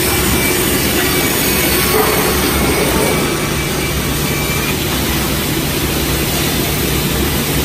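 Large circular saw bench with a 450 mm blade running, a loud steady machine drone with a low hum that becomes steadier about three seconds in.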